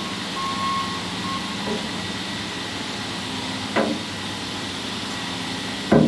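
A vehicle's backup alarm beeps twice over a steady engine hum, then stops about a second and a half in. A sharp knock comes near four seconds, and a louder one right at the end.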